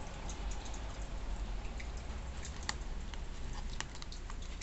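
Laminated tarot cards being handled and slid from the front of the stack to the back, giving a few scattered light clicks and taps over a low steady hum.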